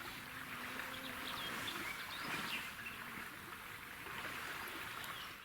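Faint outdoor ambience: a steady hiss with a few small bird chirps scattered through it.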